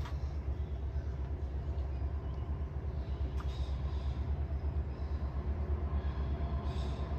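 Low, steady rumble of an approaching train's locomotives, not yet in sight, growing slightly louder toward the end.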